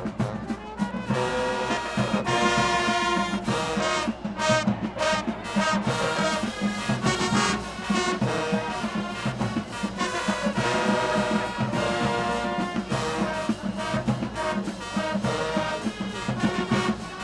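High school marching band playing, brass section with trombones and trumpets over the drumline, starting about a second in.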